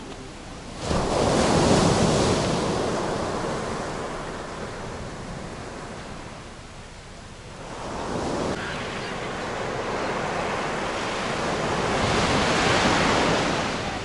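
Small Mediterranean surf breaking and washing up a sandy beach. One wave crashes in suddenly about a second in and fades, and a second builds from about eight seconds to a peak near the end.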